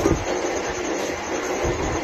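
Steady background hum and hiss with no clear individual sounds.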